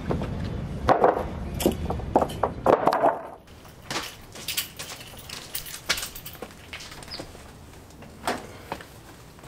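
Knocks and jangling keys as a man rises from a crouch, over a low background rumble. After about three and a half seconds the background drops away, and scattered sharp clicks and clanks follow as he climbs an aluminium telescoping ladder.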